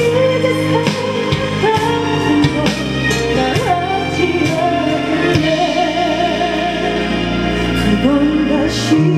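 A woman singing into a microphone over instrumental accompaniment with drum hits; she holds a long note near the end.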